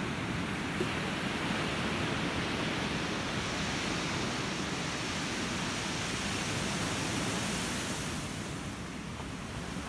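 Ocean surf: a steady wash of breaking waves, easing off slightly near the end.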